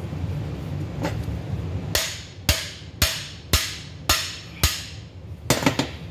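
A hammer striking a cam bearing installer bar, driving a cam bearing into its bore in a Pontiac 400 engine block: a run of sharp, ringing blows about two a second, starting about two seconds in, with the last two close together near the end.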